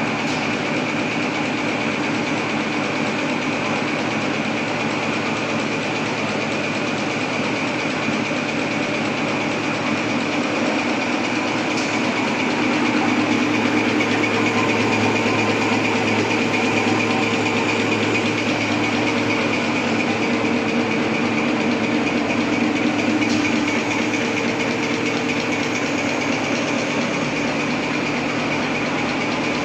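Napkin tissue paper folding machine running steadily: an even mechanical whir with a constant high-pitched hum and lower hums under it, a little louder for about ten seconds in the middle.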